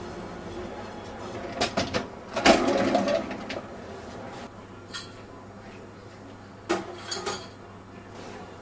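Pizza-kitchen work noise: scattered clicks and knocks, with a louder clatter about two and a half seconds in, over a low steady hum.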